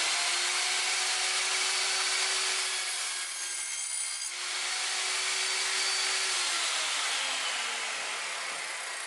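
Lotus LTST1800X table saw running at full speed, with a steady motor whine and a brief change in sound about three to four seconds in. From about six seconds the pitch falls steadily as the blade winds down after switch-off.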